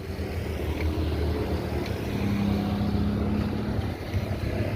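Vehicle engines running steadily, a low hum with a held low tone in the middle.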